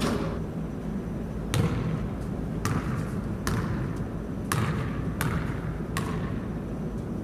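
Basketball dribbled, about seven sharp bounces at an uneven pace, each with a short ring after it.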